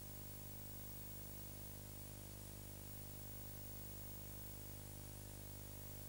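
Steady hiss with a low electrical hum: the noise floor of an old video transfer, with no other sound.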